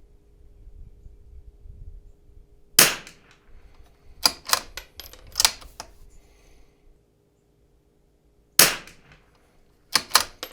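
Zermatt Rim-X .22 LR bolt-action rifle fired twice, about six seconds apart. Between the shots comes a quick series of sharp mechanical clicks and clacks from the bolt being worked to chamber the next round, and a few more clicks follow the second shot.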